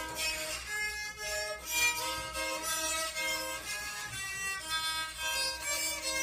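A rabeca, the Brazilian folk fiddle, bowed in a melody of held notes that change pitch every half second or so.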